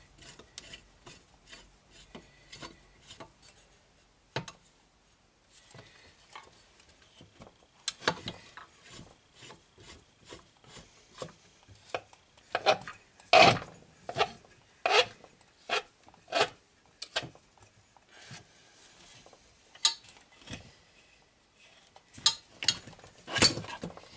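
Irregular metallic clicks, knocks and scraping as a press tool is worked on a chainsaw crankcase half to push the crankshaft out. The taps are sparse and light at first, then come thicker and louder, with the strongest knocks about 13 seconds in and near the end.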